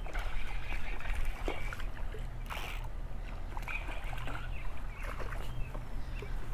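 A hooked smallmouth bass thrashing and splashing at the surface of shallow creek water close to the bank, in irregular splashes and knocks.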